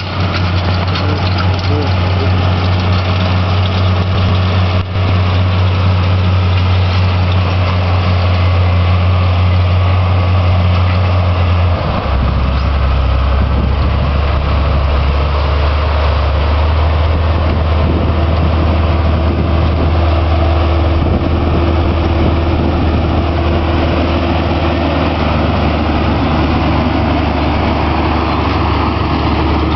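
Large diesel farm tractor running steadily while pulling a wide field harrow. About twelve seconds in, the engine's low hum drops to a lower pitch.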